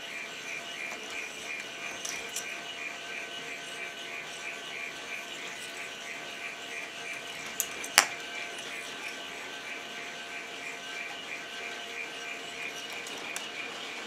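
K'NEX ball machine's motor-driven gear train and lift running, a steady whir with a fast, even pulse. About eight seconds in, two sharp clicks, the second the loudest sound, as plastic balls are handled.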